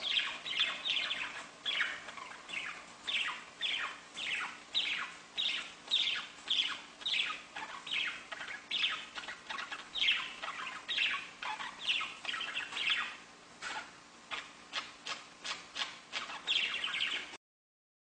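Caged budgerigars chattering: a steady stream of short chirps, several a second. The sound cuts off suddenly near the end.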